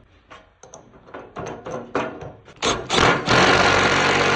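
Light clicks and knocks of metal parts being handled. About three seconds in, an impact wrench starts and runs steadily, running a nut down the bolt through the dimple die.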